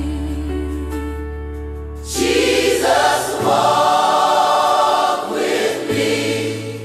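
AI-generated gospel worship song: a single voice holds a long note over a low sustained bass. About two seconds in, a choir comes in singing wordless sustained harmonies.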